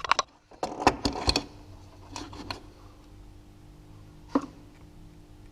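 Light clicks and knocks of hands and metal tools handling parts of a car engine with the engine off: several in the first second and a half, a few more about two seconds in, and one sharp knock about four and a half seconds in.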